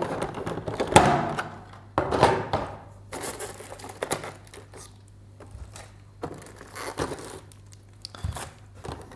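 Packaging being handled as model railway coaches are taken out of their box: crinkling plastic and rustling, with a few light knocks, busiest in the first few seconds.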